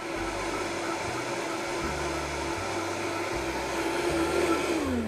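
Vitamix blender running at high speed, blending fresh coconut meat and coconut water into coconut milk: a steady whirr with a humming tone, which drops in pitch near the end as the motor is switched off and winds down.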